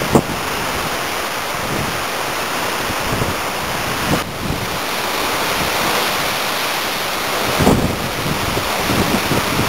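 Strong coastal wind over a rough sea: a steady rushing noise of wind and surf, with gusts buffeting the microphone in a few low thumps, near the start, about four seconds in and near eight seconds.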